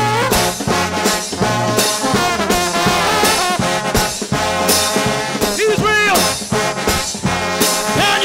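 Trombone shout band playing gospel: massed trombones over a steady beat, with sliding notes about six seconds in.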